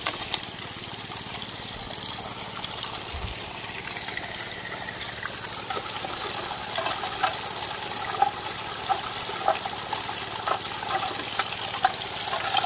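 Water rushing through a Gold Fox trommel's turning barrel. Gravel and rocks click and rattle as they tumble inside, the clicks coming more often from about halfway in.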